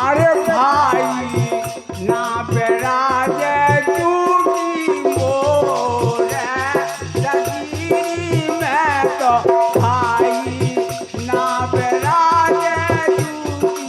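Indian folk bhajan music: a melody line that slides and wavers in pitch over a steady held drone, with an even drum beat and a jingling rattle keeping time.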